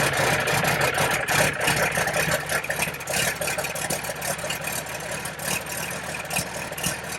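Diesel pickup truck engine idling steadily.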